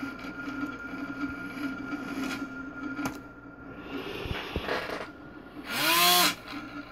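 Small electric motor and propeller of a PID-controlled propeller-balance arm humming steadily under closed-loop control, with a few keyboard keystrokes early on. About six seconds in, the motor speeds up into a loud whine that rises and then falls as the controller swings the arm to a new position.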